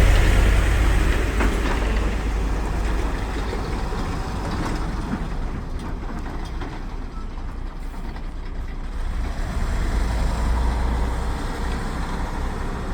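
Heavy truck's diesel engine running as it drives past, loudest at the start, easing off and then swelling again about ten seconds in.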